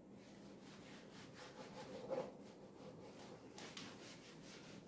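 Faint rubbing and scratching strokes on a teaching board, from writing or wiping during the pause in the lecture.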